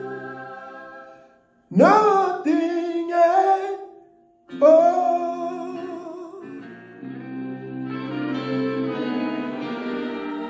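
A man singing the closing notes of a slow ballad into a handheld microphone over backing music: a held note fades out, then two sudden sung phrases start with a rising scoop and waver, each breaking off briefly. From about seven seconds in, sustained chords of the closing instrumental carry on without a voice.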